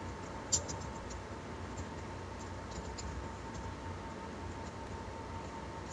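Faint, scattered computer keyboard keystrokes: a few separate clicks, one sharper than the rest about half a second in.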